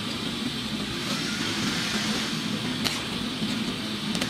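Steady noisy background rumble with a low hum, broken by two brief sharp clicks near the end.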